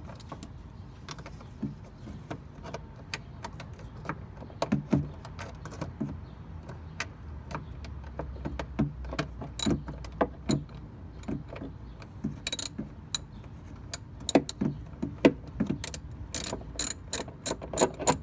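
Ratchet wrench clicking in short, irregular bursts while loosening a 10 mm mounting bolt of a car's voltage regulator, with occasional sharper knocks of the tool against metal.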